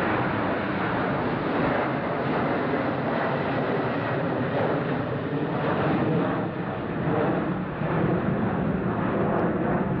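Airbus A330-200 airliner's twin jet engines at climb power just after takeoff, passing overhead and heading away: a steady rushing noise that wavers a little in level.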